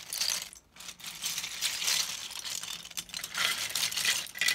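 Loose plastic LEGO bricks clattering and rattling as a hand rummages through a large pile of them, a dense jumble of small clicks with a brief lull just under a second in.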